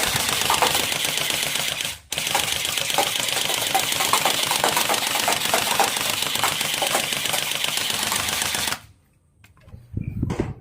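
Rapid automatic-fire rattle from a toy machine gun. It breaks briefly about two seconds in and stops suddenly near the end, with a few faint clicks after.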